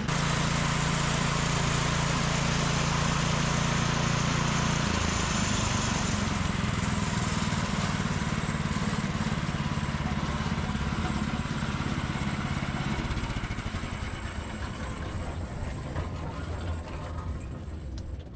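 Portable sawmill's gas engine running under load as the blade cuts through a log. The engine note shifts about five seconds in, and the sound eases off over the last few seconds.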